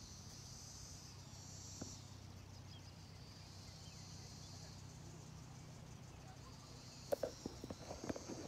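Faint, steady high-pitched chirring of crickets, with a few short sharp clicks near the end.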